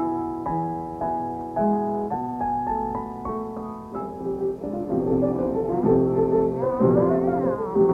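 Piano music with a tune struck note by note, about two notes a second. About halfway through, held notes with a wavering pitch come in over the piano.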